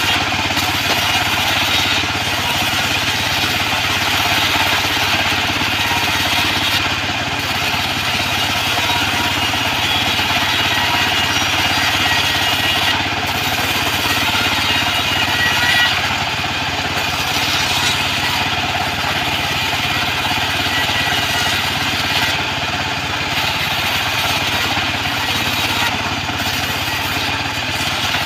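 Homemade sawmill bandsaw running steadily and loud, its band blade sawing acacia planks as they are pushed through, with short dips in the higher sawing noise every few seconds.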